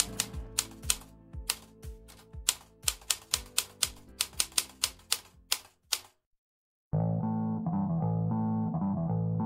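Typing clicks, irregular, about three to four a second, over faint music, stopping about six seconds in. After a brief silence, music with bass and plucked guitar starts.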